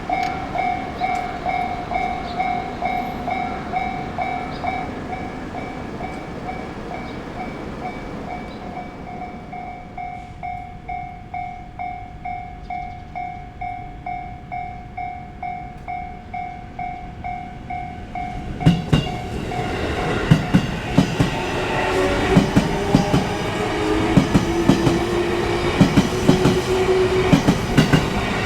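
Railway level crossing warning bell ringing, a steady two-tone ding repeating about twice a second, which stops about two-thirds of the way in. A JR Nanbu Line train then runs through, its wheels knocking over the rail joints, with a whine that rises in pitch.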